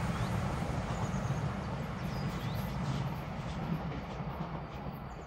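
SOB Treno Gottardo electric multiple unit (a Stadler FLIRT "Traverso") rolling away on the rails, its running noise fading steadily as it recedes round the curve. A few faint bird chirps come through as it dies away.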